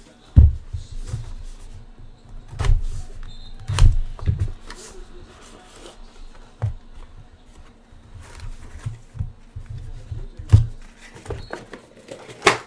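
A trading-card hobby box being opened and handled: scattered knocks and thumps of cardboard and light rustling, with a sharp, loud tearing or crinkling sound near the end as the pack is opened.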